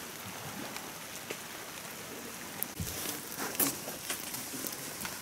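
Light rain falling, with scattered drops ticking and a few sharper ones after about two and a half seconds.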